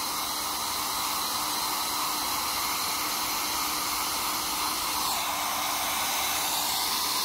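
Steady rushing hiss of blowing air with a faint hum under it; the hum stops and the hiss shifts slightly about five seconds in.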